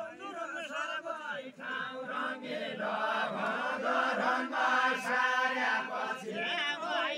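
A group of men singing a deuda, the folk song-dance of far-western Nepal, many voices together.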